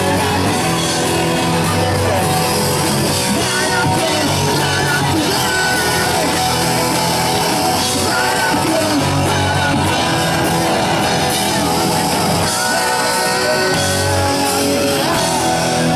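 A hardcore punk band playing live, with loud, dense amplified rock instruments and vocals.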